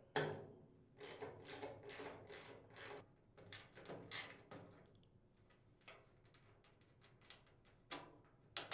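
Faint clicks and scrapes of a socket ratchet and a combination wrench turning nuts and bolts on a chipper shredder hopper. There is a quick run of them in the first half, a few sparse ones in the middle and a few more near the end.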